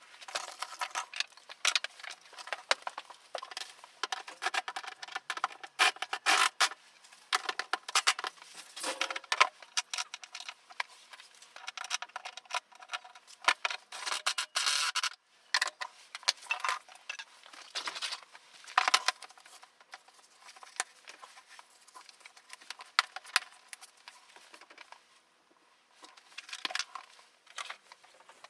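Irregular clicks, clinks and light rattles of small hard objects being handled, with no engine running.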